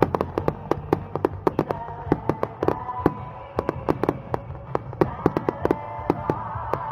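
Fireworks crackling overhead: a dense, irregular run of sharp cracks and pops, several a second, over a steady low rumble and tone.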